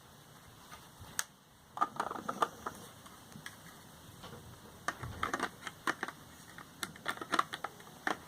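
Lego marble vending machine being worked or handled: clusters of small, hard clicks and rattles, in four or five quick runs.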